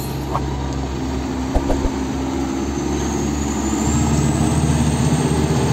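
Concrete mixer truck's diesel engine running steadily as the truck drives along, getting a little louder toward the end.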